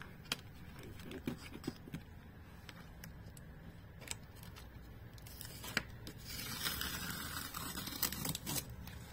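Paper masking tape being peeled off the edges of a gouache painting on paper. There are faint clicks and rustles at first, then from about six seconds in a longer tearing hiss as a strip pulls away.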